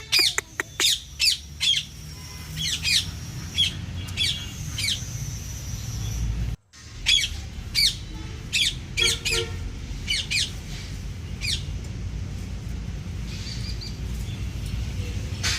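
Parrot giving a run of short, sharp calls, each falling in pitch, about two a second, stopping about eleven seconds in. The sound cuts out for an instant a little past the middle.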